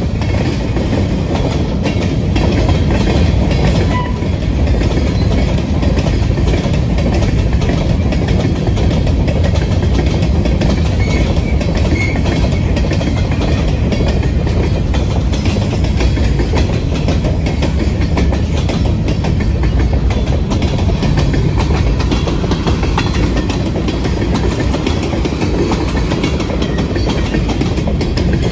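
Freight cars of a mixed freight train, covered hoppers and tank cars, rolling past at close range: a steady rumble of steel wheels on rail, with clicking as the wheels cross rail joints.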